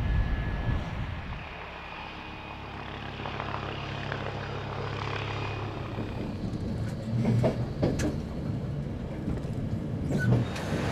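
A police helicopter's engine runs with a steady low hum. About halfway through, the sound changes to a train running on its rails, a rougher rumble with a few sharp clicks.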